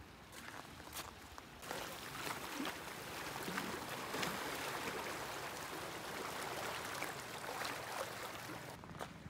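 Water rushing and washing in a steady noise, which swells louder just under two seconds in.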